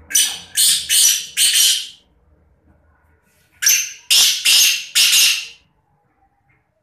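Black francolin (kala teetar) calling: two bouts of four loud, harsh notes each, the second bout starting about three and a half seconds in.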